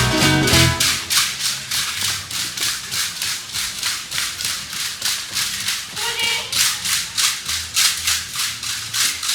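A percussion rattle shaken in a steady beat, about four sharp shakes a second, with faint voices underneath.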